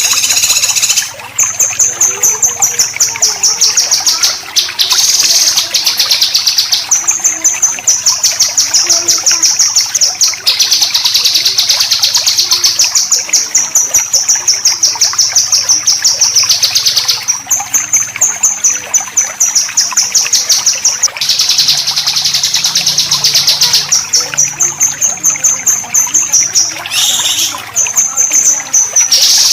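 Songbird besetan: long runs of rapid, rough rattling notes, high-pitched, each run a few seconds long with short breaks between them.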